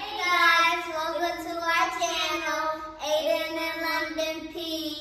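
A child singing without accompaniment, holding long notes, with a short break about three seconds in.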